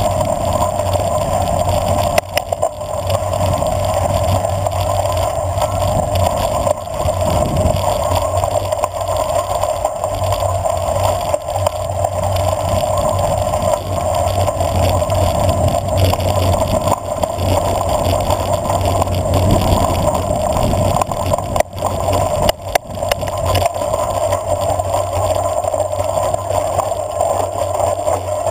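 Steady wind rush over a handlebar-mounted camera and tyres rumbling on gravel as a bicycle coasts downhill on a dirt road, with a few brief knocks from bumps.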